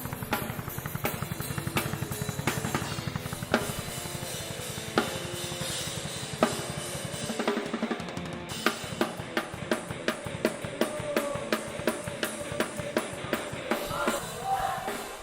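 Drum kit played fast and heavy, with rapid bass drum strokes under snare and cymbal hits and a sustained pitched tone underneath. About eight seconds in, the rapid low strokes drop away and sharp hits carry on at about three a second.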